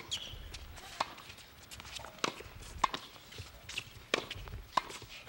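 Tennis ball being struck back and forth in a rally on a hard court: a series of sharp pops as the ball comes off the racket strings and bounces on the court, several of them ringing briefly, at irregular intervals of about a second.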